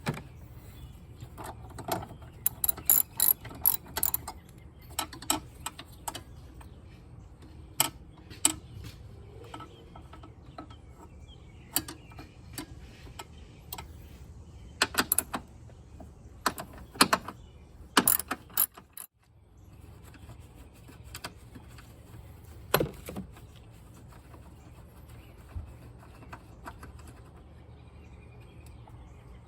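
Socket ratchet clicking in quick runs, with tool and part knocks, as the battery cover and hold-down bracket fasteners are undone; the clicks thin out in the second half.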